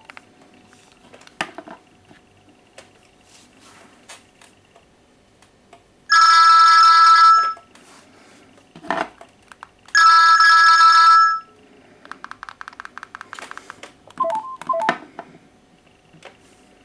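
Phone ringing: two loud electronic ring bursts, each about a second and a half long and some four seconds apart. Between them come button clicks, a brief buzz and a short run of alternating keypad beeps.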